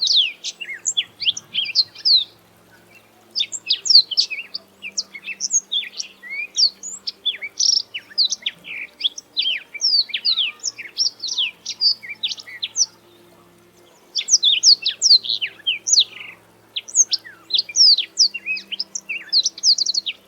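Black-throated canary singing: long, rapid phrases of quick high sweeping notes and trills, with two brief pauses between songs.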